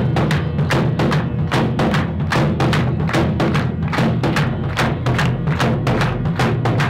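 Highland bagpipes playing over their steady drones, with a large rope-tensioned bass drum struck with a stick in a quick, even beat.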